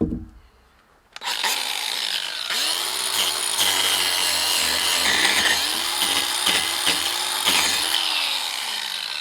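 Cordless DeWalt 18V XR angle grinder with a wood carving disc starting up about a second in and cutting bark off a log, its motor pitch dipping and recovering again and again as the disc bites and is eased off. A short thump at the very start.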